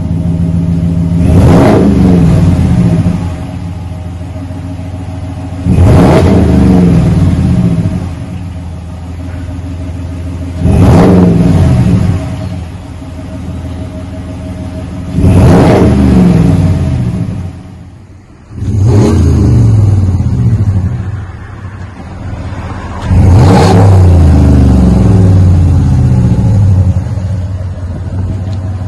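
2021 Ram 1500's 5.7-litre Hemi V8 running through a Flowmaster 40 muffler with the rear resonators deleted, idling and revved about six times. Each rev climbs and falls back to idle, and the last is held for a few seconds.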